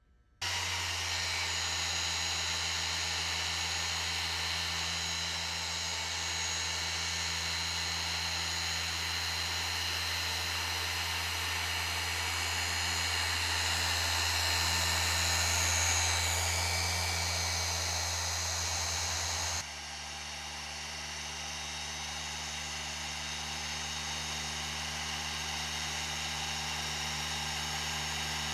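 Handheld machine polisher running steadily with its pad on a boat's painted hull, a motor hum with a high whine during the compounding (cutting) step. About twenty seconds in the hum changes abruptly to a slightly different steady tone as the work moves on to the polishing step.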